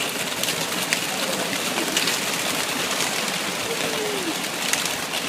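A flock of doves: a steady patter of many wings, with a faint single call about four seconds in.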